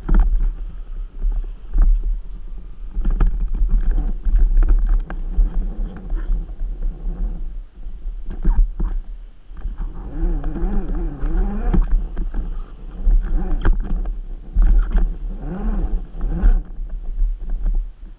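Onboard sound of an RC rock crawler working over rough terrain: a heavy rumble with many knocks and clatters as the chassis bumps and scrabbles over rocks. A wavering whine from the electric motor and gears rises and falls with the throttle, most clearly around the middle and again near the end.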